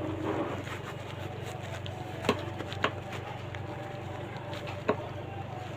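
Three short, sharp knocks spread over a few seconds, against a steady low hum.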